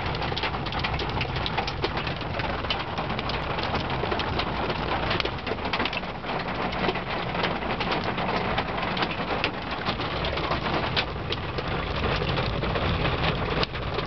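Hail and rain hitting a moving vehicle's roof and windshield: a dense, steady patter of many small hits over the low rumble of the vehicle driving.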